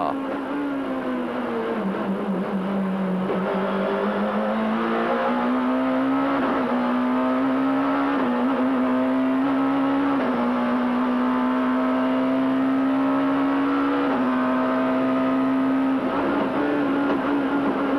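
Oreca BMW Supertouring race car's engine heard on board at high revs. The pitch drops in the first couple of seconds, climbs and holds high with a few small dips, then starts coming down near the end.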